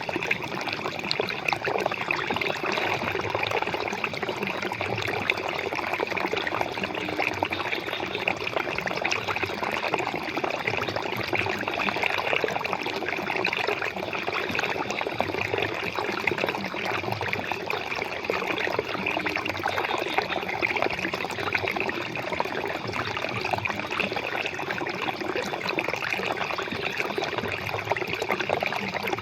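Flowing water, a steady, unbroken sound.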